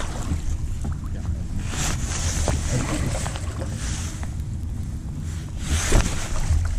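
Wind on the microphone and a rain jacket's fabric rustling against the chest-mounted camera, over a steady low hum, with three surges of hiss about two seconds apart.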